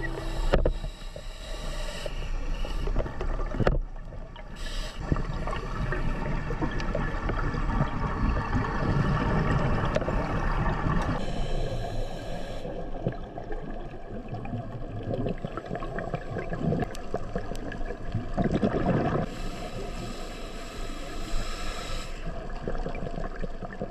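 Underwater noise picked up by a diver's camera housing: uneven rushing and gurgling of exhaled scuba bubbles, swelling and easing in waves, with a few faint clicks.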